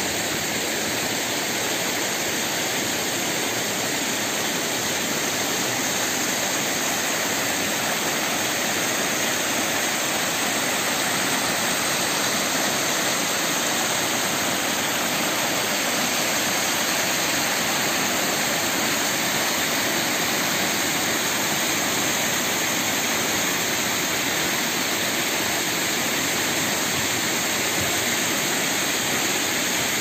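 Mumlava waterfall: mountain river water rushing and cascading over granite slabs into a plunge pool, a loud, steady rush.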